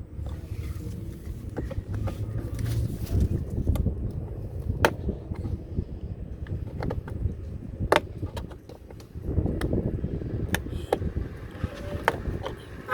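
A screwdriver prying at the stock plastic puddle light in a Tesla Model Y door to pop it out. Scattered sharp clicks and knocks, a few standing out, sound over a steady low rumble.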